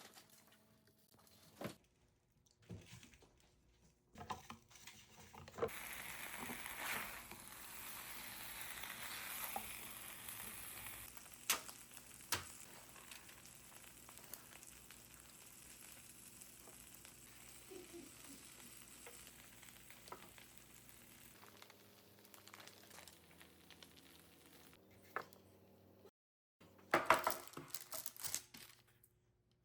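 Food sizzling in a frying pan for about fifteen seconds, with clicks and taps of utensils before and after. Near the end comes a short burst of loud crunching.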